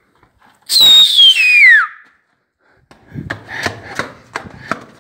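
A loud high-pitched whistle sliding steadily down in pitch for about a second. About three seconds in, quick footsteps on a hard floor begin, about three a second.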